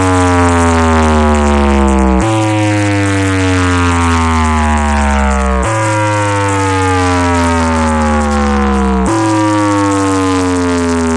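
DJ sound system speakers playing an electronic test effect loudly: a buzzy tone that slides steadily down in pitch, jumping back up to repeat about every three and a half seconds, over a deep bass drone.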